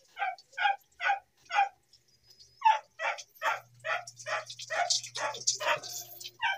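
A dog barking over and over in short, evenly spaced barks, two to three a second, with a brief pause about two seconds in. Water from a hose splashes faintly in the second half.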